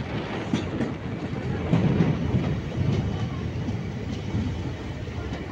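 Passenger train running at speed, heard from an open carriage window: a steady rumble with the wheels clattering over the track in irregular sharp clicks.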